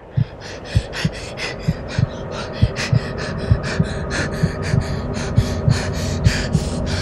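Rapid, heavy panting breaths, about three or four a second, over irregular low thumps and a faint steady low drone. The sound fades in from silence and builds louder.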